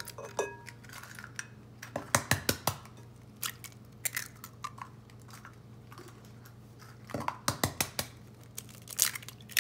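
Eggs being cracked into a glass mixing bowl: clusters of sharp taps and shell crunches about two seconds in and again around seven to eight seconds in, with a single tap near the end.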